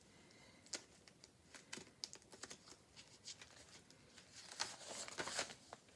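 Pages of a laminated communication book being handled and turned: faint scattered clicks and taps, with a brief rustle of pages about five seconds in.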